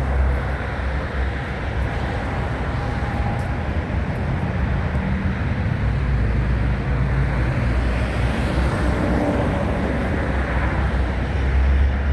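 Diesel engine of a Cat 120M motor grader running steadily at idle, with a constant low rumble.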